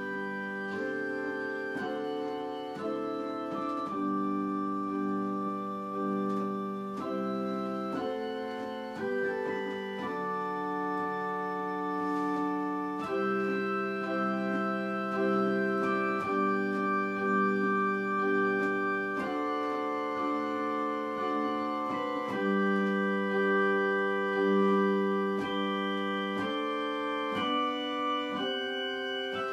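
Slow instrumental background music of held, organ-like chords that change every second or two.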